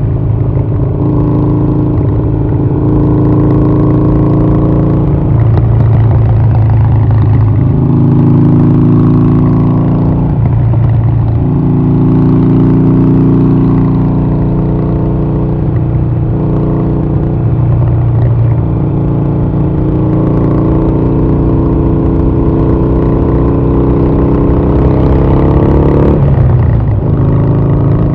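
Harley-Davidson Sportster 1200 Roadster's air-cooled V-twin running loud through cheap slash-cut mufflers with no baffles. The engine note holds steady for a few seconds at a time and changes pitch in steps every few seconds, with a quick rev near the end.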